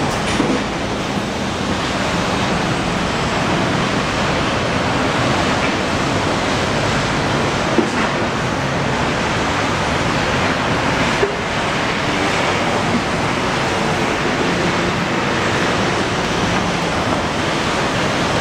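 Steady rush of heavy city street traffic, with a faint low hum of vehicle engines under it.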